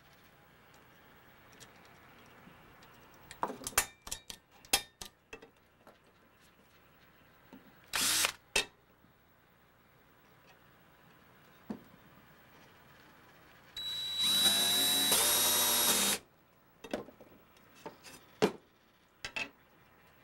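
Power drill spinning up and boring into a rivet of a machete's wooden handle, running for about two seconds in two pulls of the trigger with a brief break between. Before it come a few sharp clicks and knocks of tools handled on the wooden bench and a short burst of noise, and more knocks follow.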